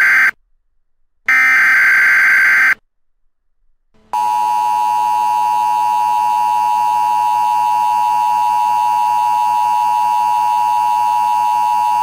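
Emergency Alert System tones: the tail of one SAME digital header burst, then a second burst lasting about a second and a half. About four seconds in, the steady two-tone EAS attention signal (853 and 960 Hz) starts and holds.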